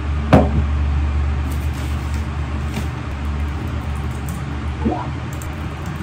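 A drinking glass set down on a desk with a sharp knock about a third of a second in, followed by light key taps on a compact keyboard and a second, softer knock near the end, all over a steady low hum.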